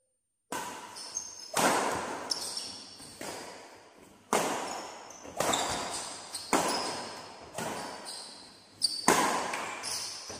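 Badminton rally: rackets striking the shuttlecock about once a second, each hit echoing on in a large hall. Shoes squeak briefly on the court between shots. The rally starts about half a second in.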